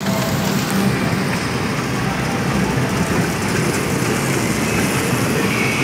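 Electric kiddie train ride running on its track, a steady rumbling din mixed with the general crowd noise of a busy indoor play area.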